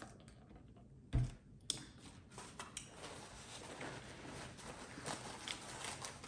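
A paper drink cup set down on a table with a dull thump about a second in, followed by light rustling and small clicks of takeout packaging being handled.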